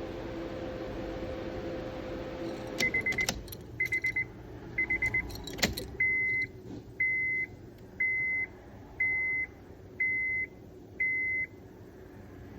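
High-pitched electronic beeping during ignition key programming: three quick bursts of rapid beeps, a sharp click, then six evenly spaced half-second beeps about one a second. A steady hum stops just as the beeping begins.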